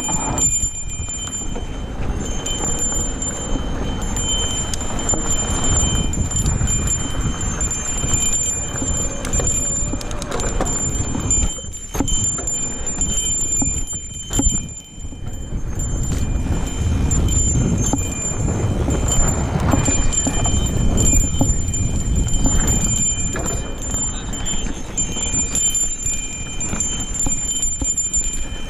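Mountain bike riding fast over dirt singletrack: wind rumbling on the camera's microphone, with tyre noise and the bike's parts clattering and rattling over bumps. A thin steady high whine runs underneath, and the rumble drops out briefly twice around the middle.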